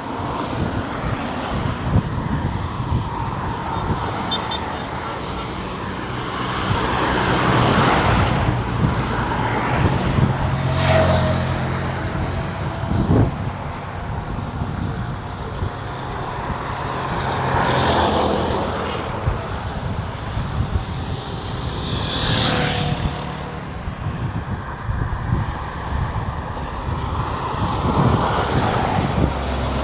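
Road traffic on a highway: a steady engine rumble with several cars and trucks passing close by one after another, each swelling up and fading away.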